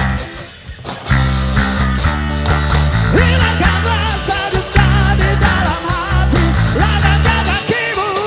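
Live band playing a rock and roll song, with a steady bass and drum backing that drops out briefly about half a second in before the full band comes back. A wavering lead melody enters about three seconds in.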